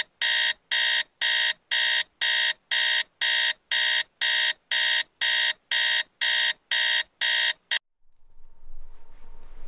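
Electronic alarm clock beeping: loud, high-pitched beeps at an even pace of about two a second, cutting off suddenly about eight seconds in, leaving faint room tone.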